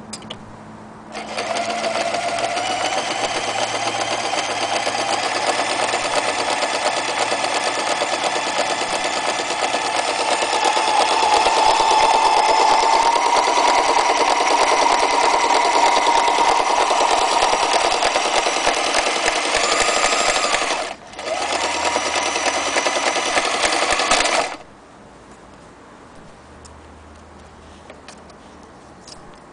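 Frister & Rossmann Model 503 electric sewing machine running and stitching through denim, its motor whine rising in pitch as it speeds up. It starts about a second in, stops for a moment near the end, runs again for a few seconds and stops.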